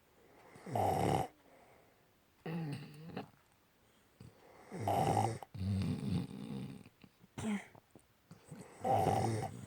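A dog and a person snoring together, their snores overlapping. The three loudest snores come about four seconds apart, with other snores in between.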